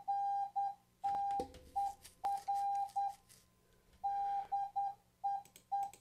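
Morse code from the xcwcp Morse tutor program: an 800 Hz tone keyed in dots and dashes at about 10 to 11 words per minute, sending English practice words such as AFTER and DEER. A few faint clicks fall between the tones.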